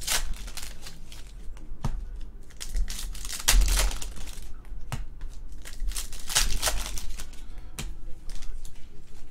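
Foil trading-card pack wrappers crinkling in irregular bursts as packs are torn open and the cards are pulled out and handled.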